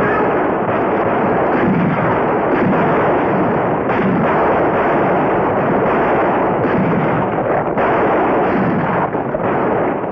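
Sustained gunfire in a western shootout: many pistol and rifle shots in quick, overlapping succession.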